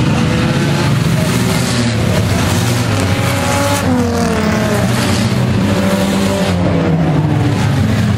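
A field of dirt-track stock cars' engines running at race speed on the oval, several at once, with engine pitch falling as cars sweep past close by, about four seconds in and again later.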